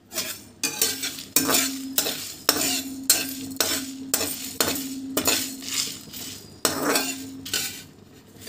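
Stainless steel spatula scraping and stirring coriander seeds, cumin and dried red chillies as they dry-roast in a metal pan, at about two strokes a second. A low steady ring sounds under many of the strokes.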